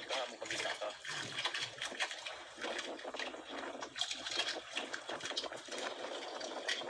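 Sea water lapping and splashing against the hull of a small outrigger boat, an irregular run of small splashes.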